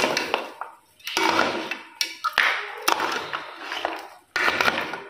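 A steel ladle stirring mango milkshake and ice cubes in an aluminium pot: the liquid sloshes while the ice and ladle clink against the metal, in strokes about once a second.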